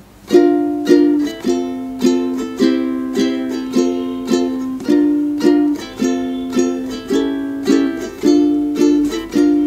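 Ukulele strummed in a down-down-up pattern, one pattern per chord, through the progression B flat, F, C, F, B flat, F, A7, D minor. The strokes come evenly, about two a second, with the chords ringing between them.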